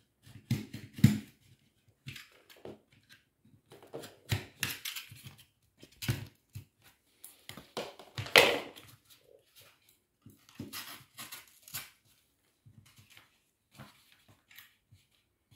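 Wallpaper rustling, crinkling and scraping in irregular short bursts as it is pressed and smoothed by hand and with a plastic smoothing spatula around a wall socket, then trimmed with a utility knife blade.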